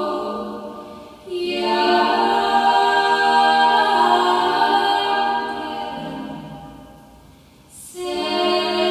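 Three women singing a Hungarian folk song a cappella in harmony, in long held phrases. One phrase dies away and a new one starts just over a second in, then slowly fades out, and the next phrase begins about eight seconds in.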